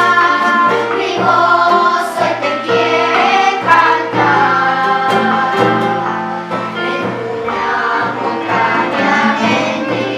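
Music: a choir singing a song in held notes over instrumental accompaniment.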